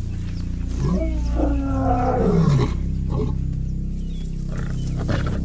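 Male Kalahari lion roaring: one long roar beginning about a second in that swells and then falls in pitch, followed by a shorter grunting call.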